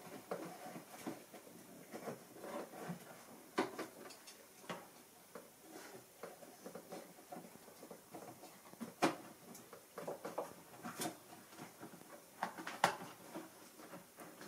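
Hand work on a car engine: scattered light clicks, taps and rubbing of parts and connectors being handled, with several sharper clicks spread through.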